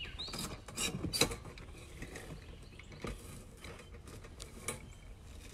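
Clicks and knocks of an animal travel box being opened and handled: a quick cluster of them in the first second or so, then a few scattered knocks.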